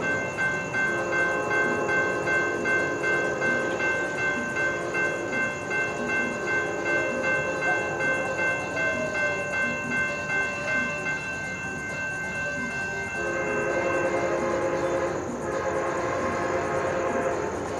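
Horn of an approaching Amtrak locomotive sounding long chord blasts for a grade crossing, with a short break about fifteen seconds in. Under it, a crossing bell is ringing at about two strokes a second.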